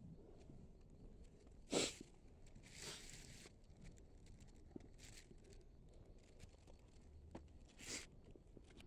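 Mostly quiet with a few brief rustles and scrapes of hands handling things at a tomb niche and its small glass door, the loudest about two seconds in.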